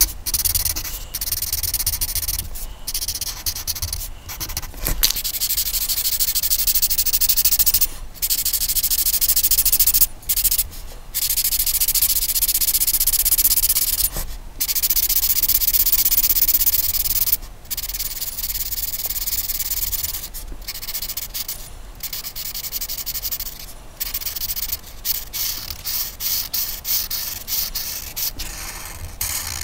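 A coloring tool scratching back and forth across a paper coloring page: long stretches of rapid rubbing strokes broken by brief pauses, the pauses coming more often near the end.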